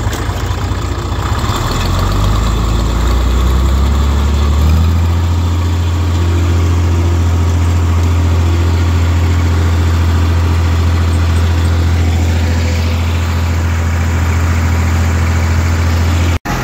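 IH 966 tractor engine running steadily, heard from the driver's seat. It changes note about four and a half seconds in, then holds an even drone, and cuts off abruptly just before the end.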